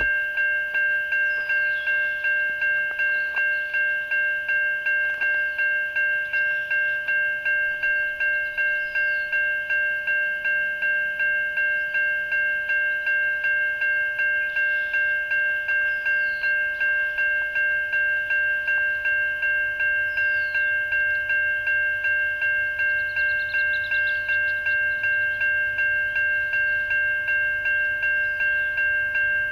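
Railway crossing bell ringing in rapid, even strokes while the crossing lights flash for an approaching train. Faint birdsong sits above it, and a low rumble from the oncoming freight train builds in the second half.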